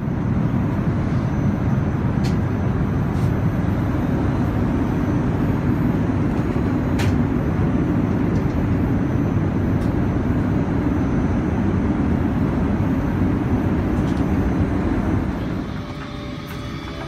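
Steady low rumble of Airbus A380 cabin noise, the engines and airflow heard from inside the cabin, with a few faint ticks. About fifteen seconds in it drops a little and a steady hum comes through.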